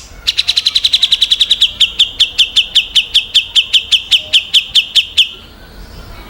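A songbird giving a long run of sharp, repeated down-slurred notes, quick at first and then slowing to about five a second, stopping a little after five seconds in: the rapid 'tembakan' volley prized by Indonesian songbird keepers.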